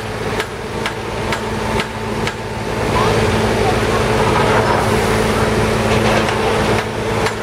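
The engine of heavy track-construction machinery running steadily at a constant speed. Over it, a regular sharp ticking comes about twice a second during the first couple of seconds and again near the end.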